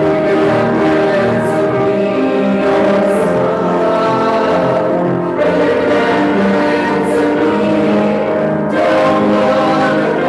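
A congregation singing a hymn with piano accompaniment, holding long notes, with short breaks between lines about five and nine seconds in.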